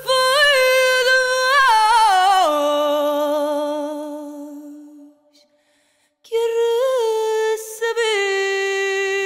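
A woman singing fado with almost no accompaniment, holding long notes with vibrato. Her line steps down in pitch and fades out about five seconds in, and after a short silence she takes up another long note that bends up, then settles lower.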